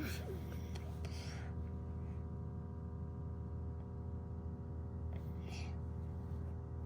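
A steady low hum of a running machine fills the room. Two brief soft hisses are heard, near the start and again about five seconds in.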